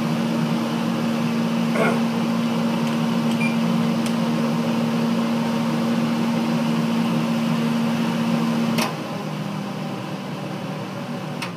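Kitchen vent fan above the stove running with a steady hum and rush of air. About nine seconds in, a click and the hum's tone stops and the sound drops, then a second click near the end cuts it off.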